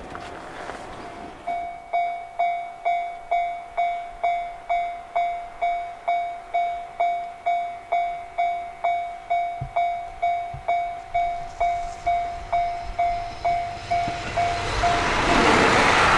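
Railway level crossing alarm ringing a repeated single-pitched ding, about twice a second. Near the end a passing train's noise swells up and drowns it out.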